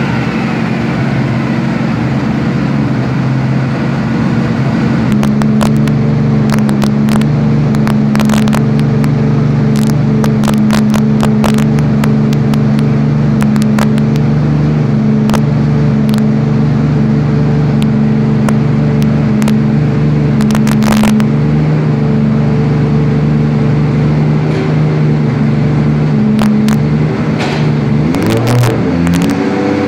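Turbocharged drift car engine held at a steady high rev on a chassis dynamometer, its driven wheels spinning the rollers, with scattered sharp crackles over the steady drone. The pitch drops and settles in the first few seconds, then starts sweeping up and down near the end as the revs change.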